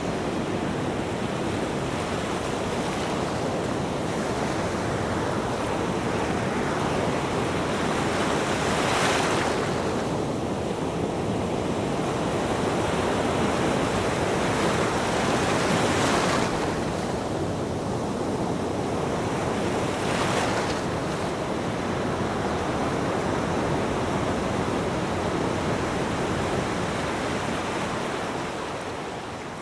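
Ocean waves breaking on a beach: a continuous wash of surf with three louder breaks, the first about a third of the way in, fading down near the end.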